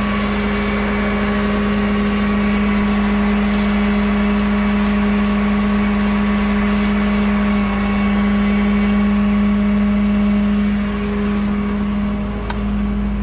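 Rollback tow truck's engine idling, a steady drone with a strong low hum that holds unchanged throughout, with a couple of faint clicks near the end.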